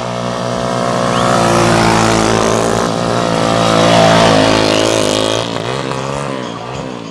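Racing motokars, three-wheeled motorcycle taxis with small motorcycle engines, revving hard as they pass close by on a dirt track. They are loudest about two and four seconds in, then pull away with the engine note rising and falling.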